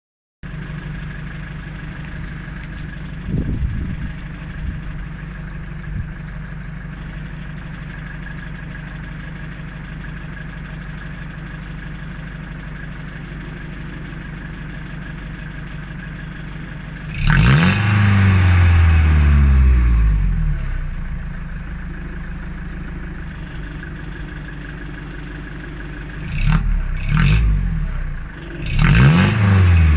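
Mercedes T1 208D van's diesel engine idling through a new budget aftermarket exhaust. It is revved up and falls back to idle a little past halfway, then blipped twice and revved again near the end. The exhaust is loud at low revs, which the owner suspects is a silencer with no baffles in it.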